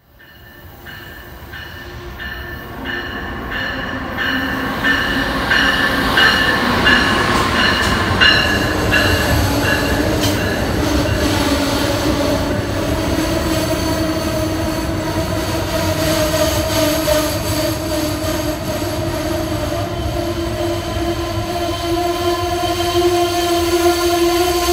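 Amtrak ACS-64 electric locomotive and its passenger cars pulling into a station, growing louder as they approach and pass. A repeated ringing, about two or three strokes a second, sounds through the first ten seconds; later the wheels keep up a steady squeal as the train slows.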